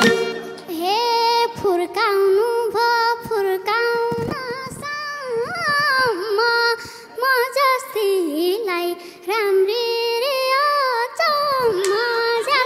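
A girl's high singing voice carrying an ornamented, wavering Nepali folk (lok dohori) melody line. The hand drums drop out, leaving the voice almost alone.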